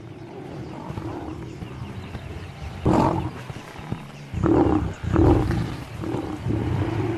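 African lion growling in a few short, loud outbursts while Cape buffalo charge it: the first comes about three seconds in, two more close together near the middle, and more toward the end.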